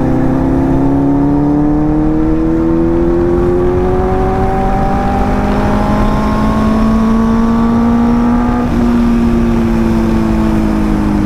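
Benelli 600i's 600 cc inline-four engine pulling under way, its note rising slowly and steadily for about eight seconds. The pitch then jumps abruptly and eases down near the end. Wind rushes over the microphone underneath.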